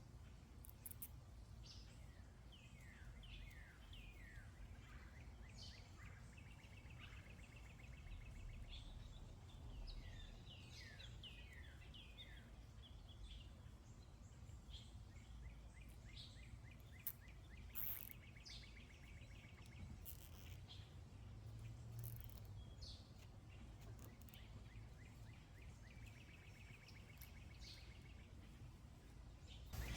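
Faint outdoor birdsong: scattered short falling chirps and a few rapid trills, over a low steady background rumble.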